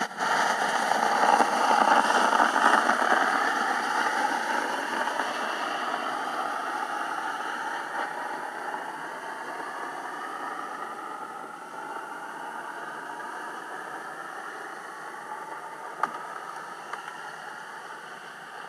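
Four-wheeler (ATV) engine heard through the ice on an underwater microphone as it drives off across the lake: a steady engine hum with whining tones that comes in suddenly, is loudest over the first few seconds, then slowly fades as the machine moves away. A single sharp click near the end.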